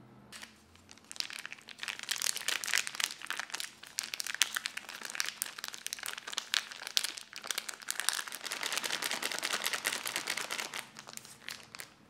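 Plastic snack-style pouch of Sichuan preserved mustard greens (sui mi ya cai) crinkling and crackling as it is handled and squeezed empty by hand. The crackling starts about half a second in and stops just before the end.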